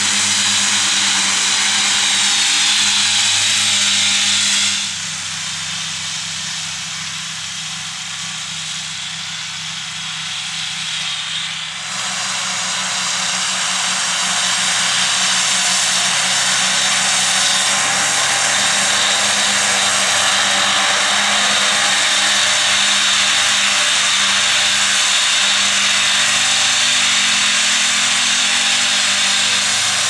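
Fendt 826 Vario tractor's six-cylinder diesel running steadily under load, with a high steady whir from the spinning discs of a Kuhn FC 9530D triple disc mower cutting grass. The sound drops abruptly about five seconds in and comes back just as abruptly about seven seconds later.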